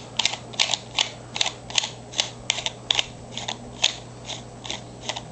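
Metal lightsaber pommel being unscrewed from the hilt by hand: threads scraping metal on metal in short, even strokes, about two to three a second.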